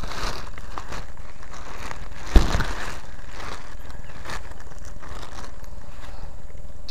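Plastic bag crinkling as it is handled, over a steady low rumble, with one sharp knock about two and a half seconds in.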